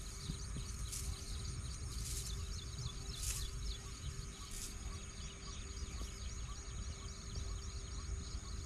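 Wind rumbling steadily on the microphone, with many small birds chirping busily in the background and a few brief hissy gusts in the first five seconds.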